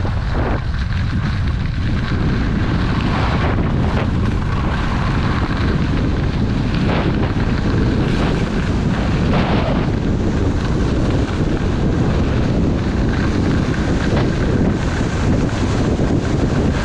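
Heavy wind buffeting the microphone of a skier moving fast downhill, over the hiss of skis sliding on packed snow. A few times the ski hiss briefly swells into a scrape, as the skis turn on their edges.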